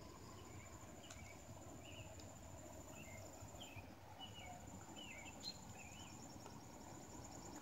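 Faint outdoor ambience: a bird chirping in short, bending notes over a steady high insect trill, with a low background rumble.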